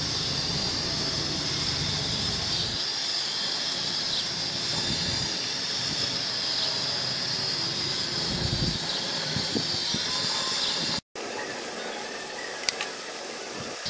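Steady hiss from a single-burner LPG gas stove under a pot of boiling fish gravy, with gusts of wind rumbling on the microphone. The sound breaks off for a moment near the end.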